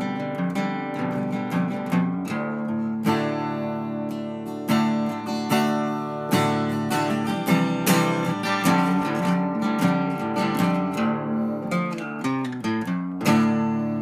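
Background music of acoustic guitar, strummed and picked, ending on a strong chord about a second before the end that rings out and fades.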